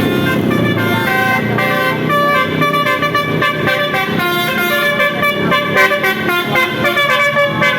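A tour bus's basuri, a multi-note musical air horn, playing a quick tune of held notes that step from one pitch to another.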